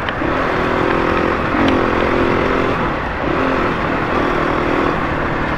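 Dirt bike engine running at a steady, even speed while riding a gravel road, mixed with a steady rush of wind and tyre noise.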